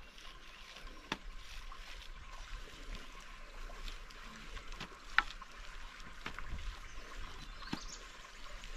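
Steady trickle of a shallow rocky stream, with a few brief clicks and soft squelches from hands kneading wet mud; the sharpest click comes about five seconds in.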